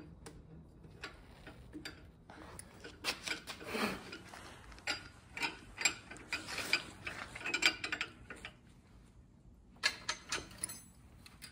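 Cordless drill turning a line-boring bar in short bursts, giving irregular ratcheting clicks and metallic knocks. The tool bit is biting hard and binding in the cut.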